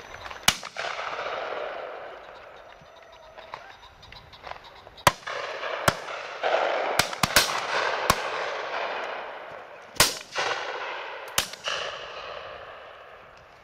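About ten shotgun shots from a line of guns firing at driven gamebirds, some sharp and near, others softer and farther off, with a quick run of several shots around seven seconds in. Each shot is followed by a long rolling echo.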